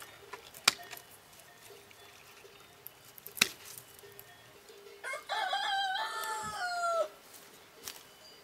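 Two sharp snips of Fiskars bypass pruning shears cutting side twigs off a field elm rod. About five seconds in, a rooster crows once for about two seconds, its pitch stepping down at the end.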